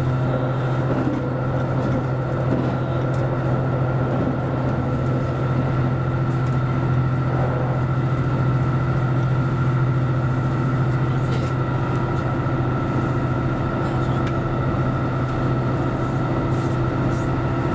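JR Central Series 85 diesel railcar running at speed, heard from the driver's cab at the front: a steady low engine drone with running noise over it, unchanging throughout.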